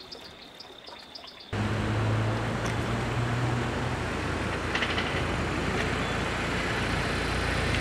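A quiet scene with a faint steady high tone and regular ticking cuts abruptly, about a second and a half in, to a motor vehicle's engine running steadily with a low hum and road noise.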